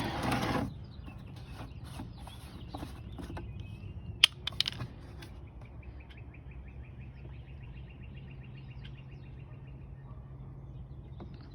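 Light clicks and taps with one sharp tick about four seconds in, then a bird's rapid, even trill lasting about five seconds over a low steady hum.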